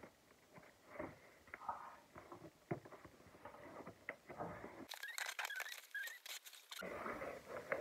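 A parcel being opened by hand: quiet rustling and small clicks of packaging, with a sharper, higher crackle of plastic or paper for about two seconds a little past the middle.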